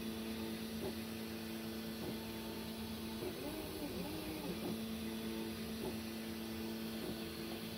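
3D printer's stepper motors singing as the print head moves: steady tones during long straight moves, broken several times by pitch sweeps that rise and fall as the head speeds up and slows, over a steady fan hiss.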